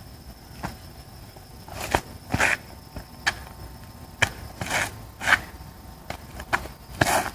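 Bajiquan footwork on asphalt: about ten sharp shoe slaps and short scuffs at irregular intervals as the feet stamp, step and slide.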